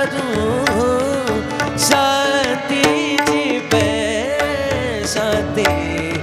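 Devotional Marathi abhang sung in a long ornamented phrase by a young singer. Below the voice a steady held drone runs on, and hand drums keep a steady beat.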